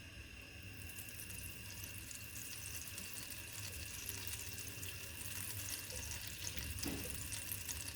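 Butter and olive oil sizzling in a hot pan: a steady crackling hiss that starts about a second in.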